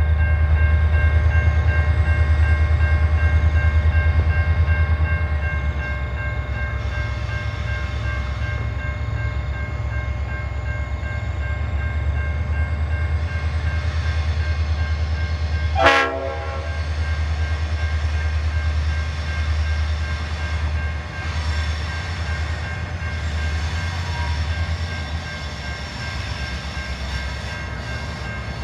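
Diesel-electric freight locomotives running with a steady deep engine rumble as the train approaches, with faint steady high ringing tones over it. About halfway through there is a single brief sharp falling sweep.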